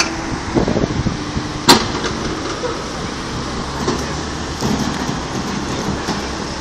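Diesel engine of a 9-tonne mini excavator running steadily, with one sharp knock about a second and a half in.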